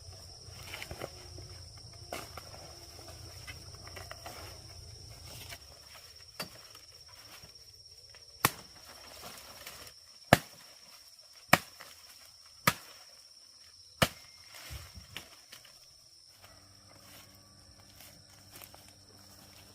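Insects trilling steadily at a high pitch. A low rumble stops about five seconds in, and from about six seconds in six sharp clicks or knocks come one to two seconds apart.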